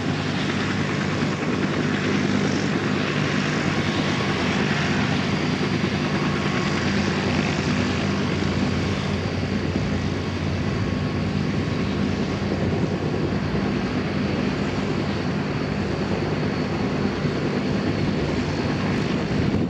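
Antonov An-32's two Ivchenko AI-20D turboprop engines running at a steady power setting: a deep, even propeller drone with a faint high whine over it.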